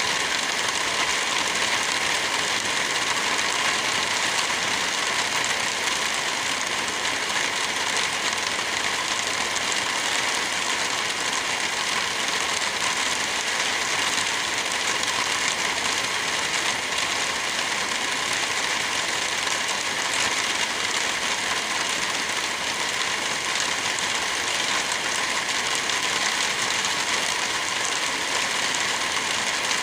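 Steady rain, an even hiss that does not let up.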